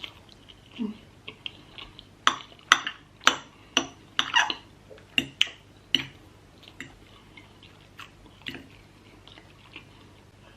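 Close-up eating sounds from a meal of noodles and chicken: chewing, with a run of sharp clicks and clinks of utensils against a plate or bowl, thickest between about two and six seconds in.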